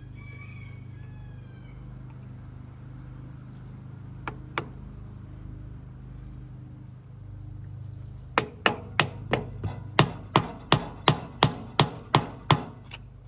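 Hammer blows on metal: two knocks, then a fast run of about fourteen strikes, roughly three a second, hammering at a Cub Cadet 104's stuck rear differential cover to break it loose. A steady low hum runs underneath.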